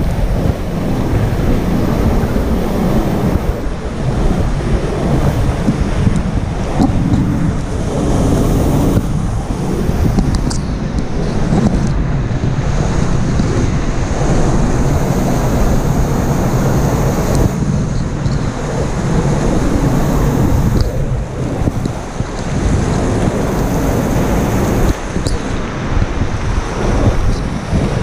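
Fast canyon river rushing over rocks: a loud, steady whitewater rush heard close up, with the water buffeting the action camera's microphone and a few faint knocks.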